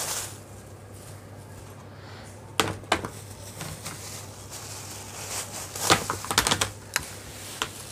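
Clear plastic film crinkling as it is pulled off plastic car wheel covers, with sharp knocks of the covers being handled and set against one another, twice a little after two seconds in and in a quick cluster about six seconds in.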